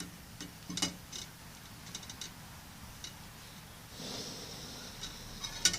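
Light clicks and clinks of camp cookware being handled. About four seconds in a steady hiss starts, the propane camp stove's burner running, and a few sharp clicks follow near the end.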